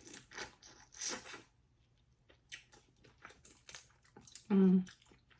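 Close-miked eating: wet lip smacks and chewing in short irregular clicks, from spicy Cajun seafood with buttery sauce. A brief hummed voice sound comes about four and a half seconds in.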